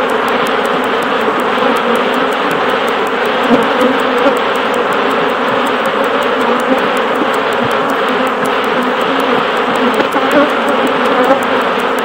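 A colony of honey bees massed on an exposed hanging nest, buzzing together in a loud, steady, unbroken hum.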